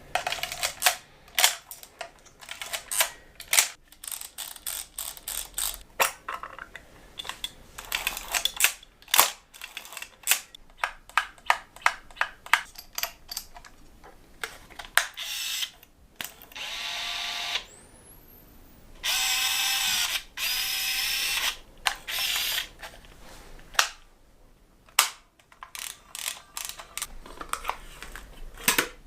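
Old film camera's mechanism clicking and clacking many times in quick irregular succession, with two stretches of steady whirring about halfway through, the second starting with a rising whine.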